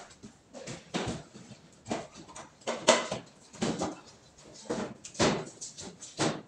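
A plastic ceiling grille panel being pushed and fitted into its ceiling frame: a string of short knocks and clacks, about one or two a second.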